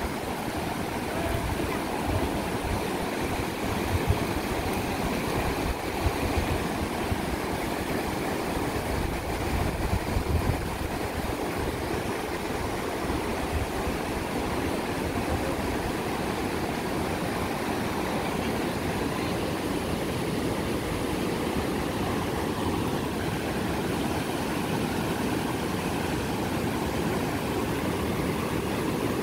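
Rushing floodwater: a steady, even noise of moving water. A few low knocks stand out in the first ten seconds or so.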